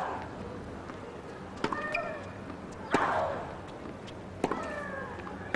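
Tennis rally on a hard court: the ball is struck back and forth about every 1.3 seconds, and sneakers squeak on the court surface between shots. Every other strike is louder and is followed by a short hiss that fades over about half a second.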